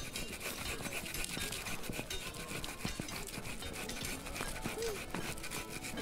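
Layered battle-scene sound design: a dense, steady texture of rattling, scraping clicks, with a short pitched call rising and falling about five seconds in.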